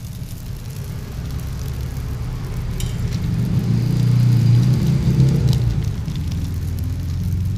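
Low engine rumble of a motor vehicle, swelling to its loudest about four to five seconds in and then easing off, as it passes close by.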